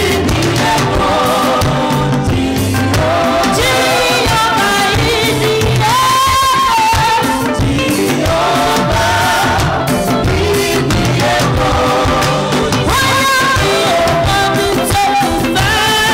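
A child singing into a microphone with a live band of keyboard, drum kit and electric guitar, the voice held on long wavering notes over a steady beat.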